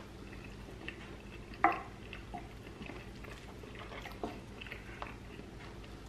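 Quiet eating sounds: a few faint wet clicks and smacks, the sharpest about one and a half seconds in, over a faint steady low hum.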